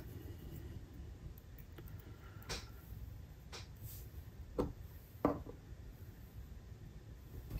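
Small parts and tools being handled: five or six light clicks and taps, spread over a few seconds.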